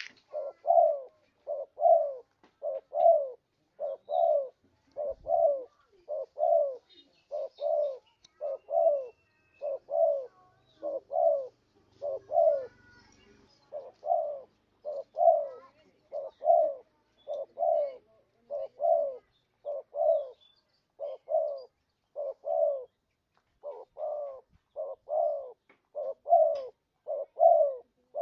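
Spotted dove (tekukur) cooing over and over in a steady rhythm, a lure call for drawing in wild doves.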